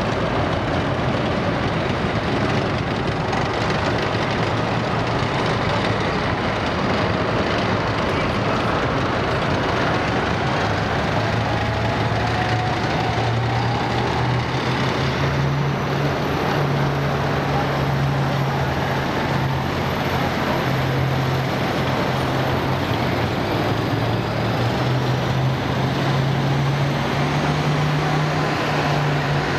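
Heavy military vehicles on a wet asphalt street, giving a continuous loud rumble. A tracked tank drives away as the sound opens. From about a third of the way in, the low steady drone of a big eight-wheeled truck's diesel engine builds as the truck approaches and begins to pass near the end.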